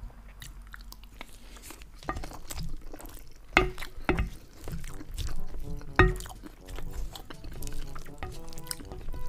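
Close-up eating sounds: wet chewing of a mouthful of rice and meat, with a wooden spoon knocking and scraping on a ceramic plate, three sharp knocks standing out in the middle.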